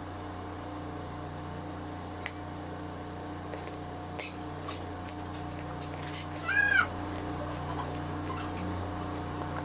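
A cat meowing once, a short call that rises and falls in pitch about two-thirds of the way through. Under it runs a steady electrical hum, with a few faint clicks.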